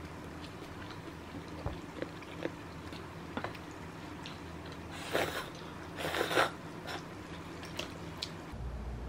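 A person eating: soft chewing and small clicks of chopsticks, with two louder noisy sips from a paper cup of instant noodle soup about five and six seconds in.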